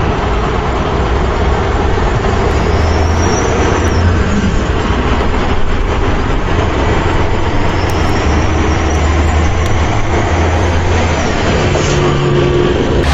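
A heavy vehicle's engine running steadily, with a deep hum under a rushing noise. This is most likely an engine sound laid over the footage, since pushed toy trucks make no such sound.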